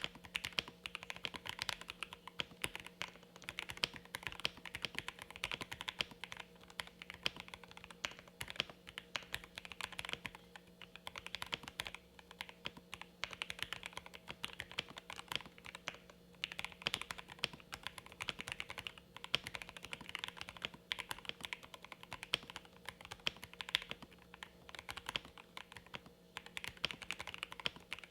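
Steady fast typing on a Jelly Epoch gasket-mount mechanical keyboard, built with lubed Lavender linear switches on a polycarbonate plate and no case foam, with GMK keycaps. The keystrokes come as a dense, irregular run of clacks, which the builder finds muted and dull for this build.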